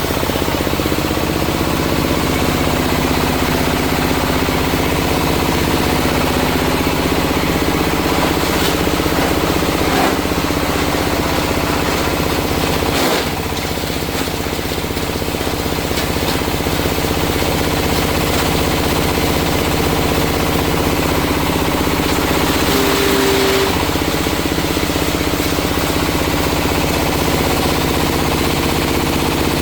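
Coconut-husk grinding machine running steadily under power, with a brief dip in level about halfway through.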